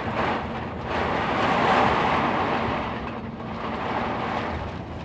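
Strong storm wind gusting hard and buffeting the microphone, a loud rushing noise that surges and eases.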